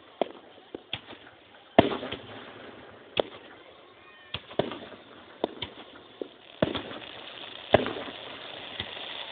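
Fireworks display: irregular sharp bangs of shells bursting, a dozen or so, the loudest just under two seconds in, about three seconds in and near the end. The sound is thin and dull as recorded on a phone.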